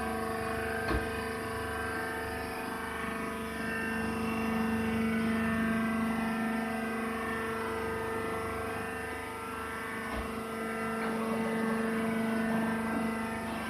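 Hydraulic baling press's motor and pump running, a steady whine with a low hum, and a faint knock about a second in and again near the end.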